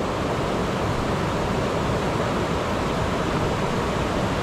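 Steady, even rush of a nearby river flowing over rocks.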